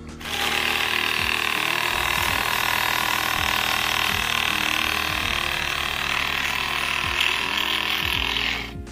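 Battery-powered GOBOSS mini reciprocating saw running and cutting into the base of a bamboo shoot: a steady, loud sawing noise that starts at once and stops suddenly near the end.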